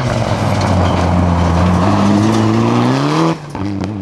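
Rally car engine pulling hard on a gravel stage, its pitch climbing for a couple of seconds, then dropping abruptly a little over three seconds in, with a few sharp cracks just after.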